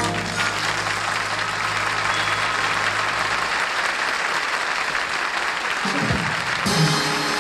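Studio audience applauding as the orchestra's last held note of the song fades out. Near the end the orchestra starts playing again.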